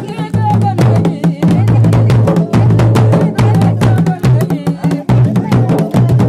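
Music with fast, dense drumming over a steady low bass line.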